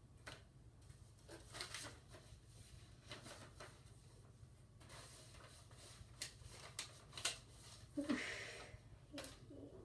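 Paper rustling and crinkling in short, scattered bursts as cards are slipped into envelopes, with a longer, louder rustle about eight seconds in.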